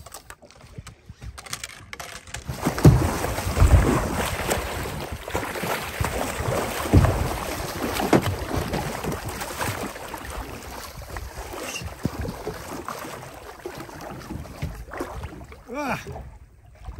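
A blue shark thrashing at the surface beside a small boat: loud splashing and slapping of water that starts about two and a half seconds in, with the heaviest splashes in the first half, and dies down near the end.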